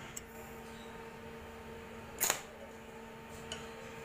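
Steady low electrical hum from a TIG welding machine, with one sharp click about two seconds in and a fainter click a little later.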